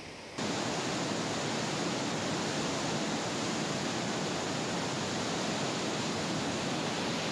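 Steady rushing of the swollen, fast-flowing Ganga in flood, cutting in abruptly about half a second in.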